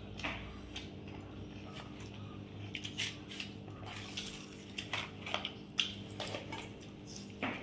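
Close-up eating sounds: chewing and mouth smacks of fried rice and chili chicken, with scattered clicks of food against the plate, over a steady low hum.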